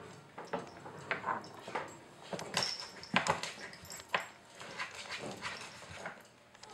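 Norwich terrier puppy nosing and pawing at a wooden Nina Ottosson Dog Fighter treat puzzle: sniffing, with the wooden pegs and sliding pieces knocking and scraping in irregular sharp clacks.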